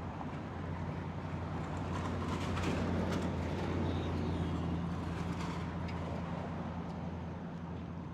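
A road vehicle passing by: a steady low drone over road noise swells to its loudest about three to four seconds in, then slowly fades.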